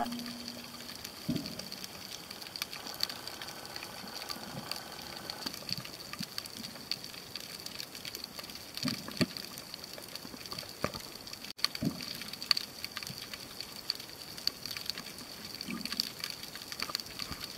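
Underwater ambience on a snorkelling camera: a steady crackle of many small clicks over a watery hiss, with a thin steady high tone and a few soft low thuds.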